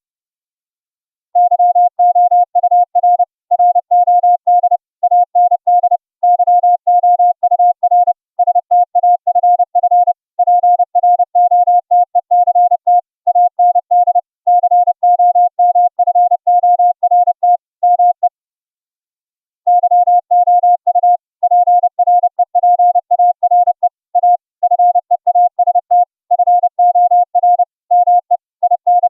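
Morse code (CW) audio tone from FLdigi, one steady pitch a little below 1 kHz keyed rapidly on and off in dots and dashes. It pauses briefly just after the start and again about two-thirds of the way through.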